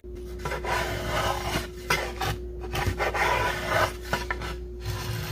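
Small Stanley pocket plane pushed along the edge of a wooden canoe paddle blade, taking off shavings. It makes a series of rasping scrapes, each stroke about a second long with short pauses between.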